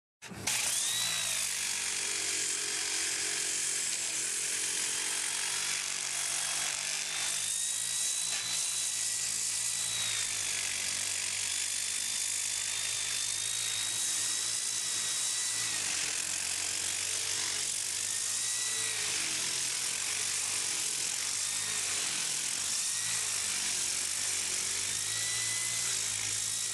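Handheld power tool fitted with a Malish Diamabrush diamond abrasive brush, running against a painted wall surface. It makes a steady grinding hiss with a high motor whine that dips in pitch and recovers several times as the brush is pressed on and eased off.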